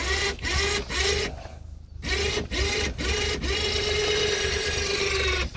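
Rino 3000 lb electric winch hauling a wild boar carcass, its motor whine starting and stopping in several short jogs, then running steadily for the last two seconds or so.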